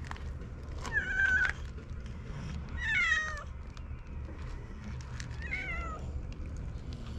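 Cat meowing three times, each call short, the second and third falling in pitch.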